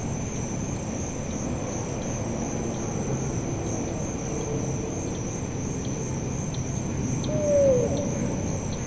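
Evening insect chorus of crickets or katydids, a steady high-pitched trill, over a low steady rumble. About seven and a half seconds in, a short falling call is the loudest sound.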